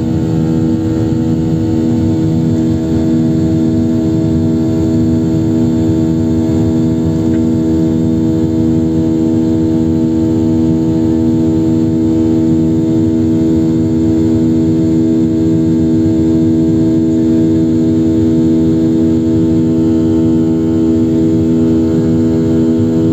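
Airliner cabin noise during the climb after takeoff: the turbofan engines' steady drone, a rushing noise with several steady hum tones, heard from inside the cabin.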